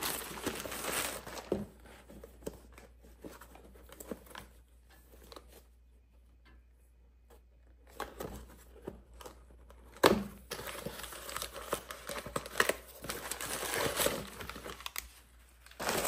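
Plastic mailer bag and packaging being handled and crinkled during unboxing, with a quieter pause in the middle, a sharp tap about ten seconds in, then more crinkling.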